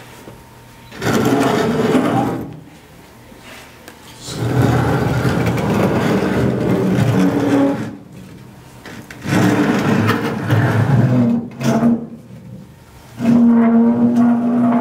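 A heavy wooden box pushed by hand across a concrete floor, scraping and grinding in four long strokes with short pauses between them, each stroke carrying a low droning hum.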